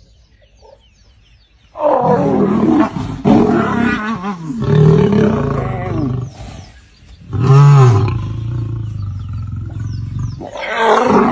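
Lion growling and snarling in several loud bursts, beginning about two seconds in, with short pauses between them.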